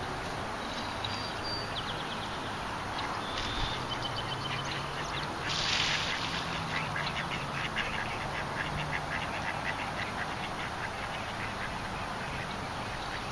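Ducks quacking in a long run of short, quick calls through the second half, over a steady wash of wind and rippling water, with a brief rustle about six seconds in.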